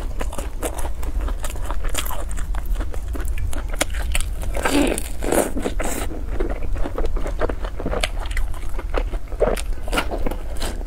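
Close-miked crisp bites and chewing of fried dough sticks (youtiao), a run of short crunchy crackles, over a steady low hum.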